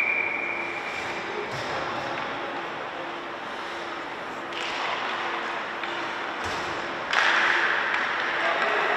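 Ice-hockey rink sound: a referee's whistle tails off in the first second, then steady arena noise with a few knocks of sticks and puck on the ice, one louder knock about six and a half seconds in. The noise grows louder about seven seconds in as the faceoff is taken and skates cut across the ice.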